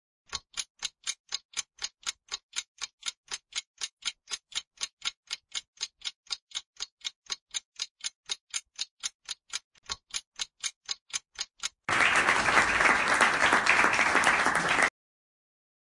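Quiz countdown timer sound effect: a clock ticking at about four ticks a second, then, about twelve seconds in, a burst of applause lasting some three seconds that greets the revealed correct answer.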